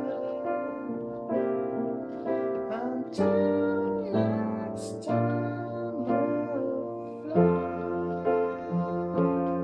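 Piano music played on a keyboard: sustained chords over a low bass note that changes about three seconds in and again near the end.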